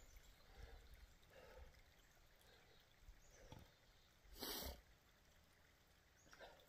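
Near silence, broken about halfway through by one short, heavy breath from a tired, winded man.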